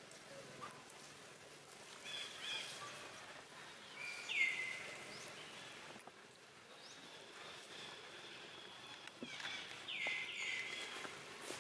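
Infant macaques giving short high-pitched calls that drop in pitch and then level off. The loudest comes about four seconds in, and two more follow close together near the end, with fainter chirps between them.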